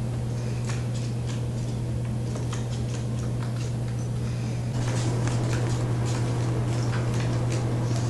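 A steady low hum with scattered light clicks and taps. The background noise grows a little louder about five seconds in.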